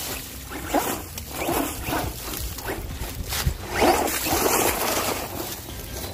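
Redcat Volcano EPX PRO brushless RC monster truck being driven hard: its electric motor revs up and down in quick short bursts over a rough, hissing noise, loudest about four seconds in.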